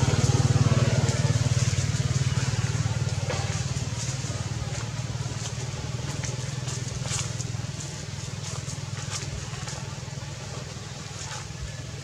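A motor engine running with a steady low hum that fades away over several seconds, with a few faint clicks in the middle and near the end.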